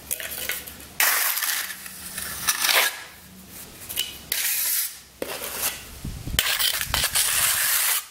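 A steel trowel scraping and smoothing wet concrete patching mortar over a concrete floor, in several long, gritty strokes with short pauses between them.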